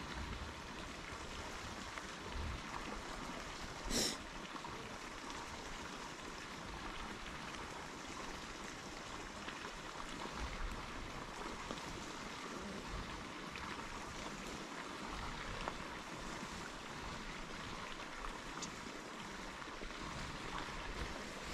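Steady rush of running water, with one short sharp sound about four seconds in.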